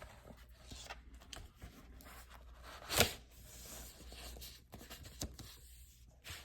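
Faint crinkling and rustling of plastic shrink wrap and record packaging being handled and opened, with one louder crackle about three seconds in.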